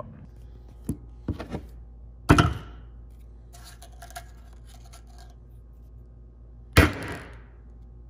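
Two loud hammer knocks on a thin steel server-rack bracket on a wooden workbench, about four and a half seconds apart, each with a short ringing tail. The blows straighten a bent flange. Lighter clicks and handling noise come between them.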